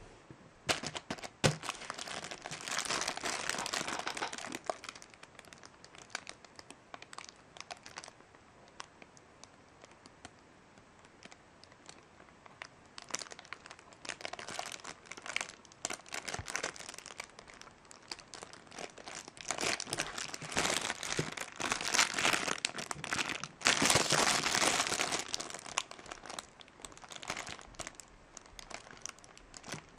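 Thin clear plastic sample packaging crinkling as it is handled and turned over in the hands. It comes in several bouts with quieter gaps between them, the longest and loudest about two-thirds of the way through, and there are a few sharp clicks near the start.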